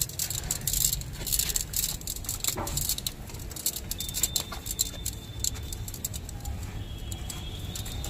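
Quarter-inch soft copper pipe being unrolled from its coil and laid straight on a concrete floor: a run of light metallic clicks and rattles as the thin tube taps and scrapes on the concrete and against its own turns, busiest in the first few seconds.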